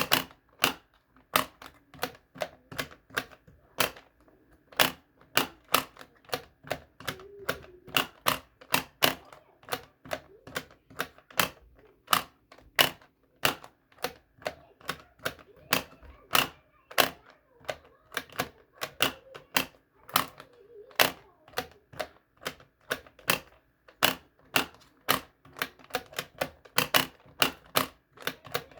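Animal-shaped pop-it fidget toy, its silicone bubbles pressed one after another: a long run of sharp, separate pops, about two to four a second, unevenly spaced.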